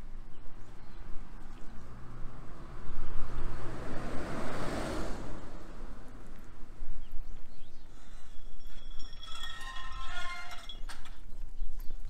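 Footsteps of a person walking on a paved street, close to the microphone. A rushing noise swells and cuts off about five seconds in, and a short high-pitched sound with several tones is heard between about eight and eleven seconds.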